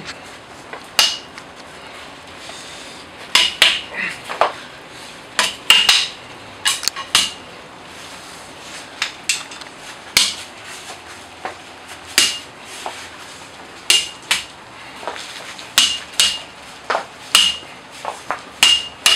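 Sticks used as swords clacking together in a mock sword fight: sharp knocks, irregular, often one or two a second and sometimes in quick pairs, each with a short ring.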